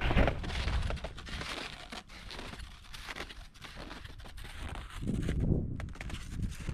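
Snowshoes crunching and squeaking on packed snow as a hiker walks, with short clicks from the snowshoes and trekking poles, over a low rumble.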